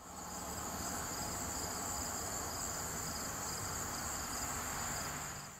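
Insect chorus: a steady high trill with a second, pulsing trill a little lower, over a faint rumble. It fades in at the start and fades out near the end.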